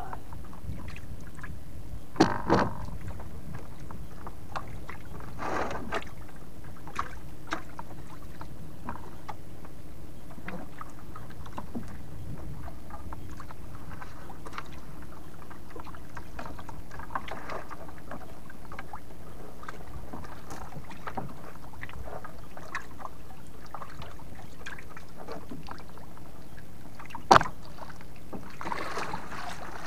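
Small fishing boat at sea: a steady, even rush of water and boat noise with scattered light clicks and knocks, and two sharper, louder knocks, one about two seconds in and one near the end.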